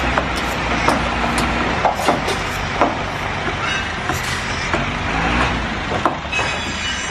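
Heavy vehicle or construction machine engine running steadily, with repeated sharp metallic clanks and knocks over it.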